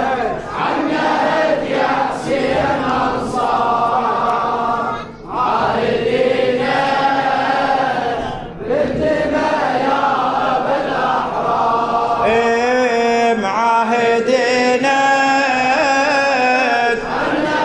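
Congregation of men chanting a Shia Muharram lament (latmiya) in unison, in long held notes. About twelve seconds in, a single clearer voice with wavering held notes leads.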